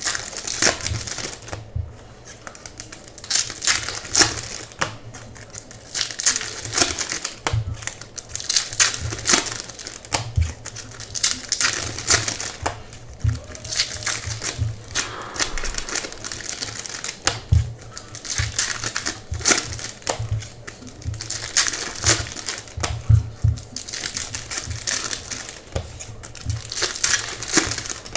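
Foil wrappers of 2018 Topps Series 2 baseball card packs crinkling and tearing as they are ripped open and handled, in irregular bursts of crackle, with occasional dull knocks of hands and cards on the table.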